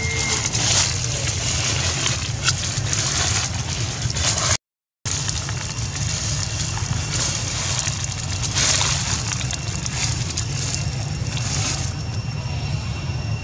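Dry leaves rustling and crunching in irregular surges as monkeys walk over leaf litter, over a steady low hum. The sound drops out completely for a moment about four and a half seconds in.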